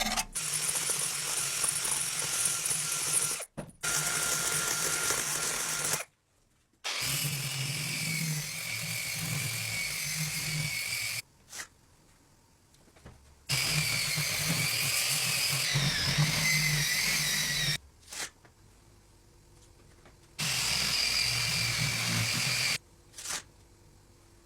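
A handheld power tool running against the rusted steel of a cleaver to take off rust, in several bursts of a few seconds each that start and stop abruptly, with a wavering high whine.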